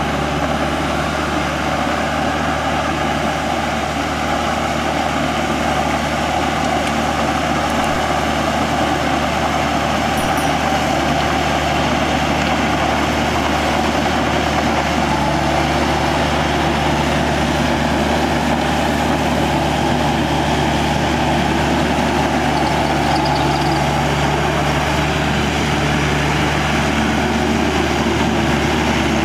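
Yanmar YM 348A tractor's diesel engine running steadily with a constant low hum.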